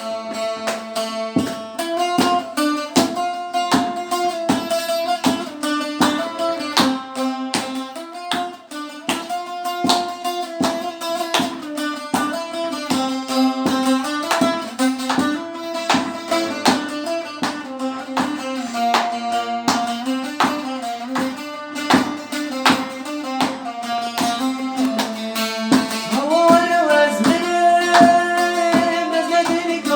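Instrumental opening of a Kurdish song: a plucked string instrument picks out a quick melody over a steady drone, with a sharp attack on every note. A singing voice seems to join a few seconds before the end.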